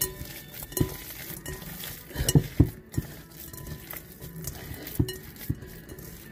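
Hands kneading a wet ground-beef meatloaf mixture in a glass mixing bowl: squishing, with irregular knocks and clinks against the glass, the loudest a close pair about two and a half seconds in.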